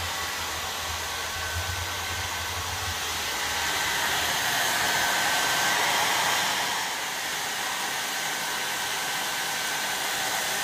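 Handheld hair dryer running steadily on, a continuous rush of blown air with a faint steady whine, its airflow directed up into perforated plastic baskets holding styrofoam balls.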